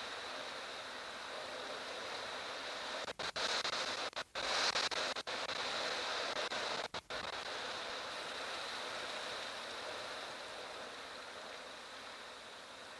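Strong wind rushing steadily through savannah grass and brush in a dust storm, as an even hiss that swells about four to five seconds in and cuts out briefly a few times between about three and seven seconds in.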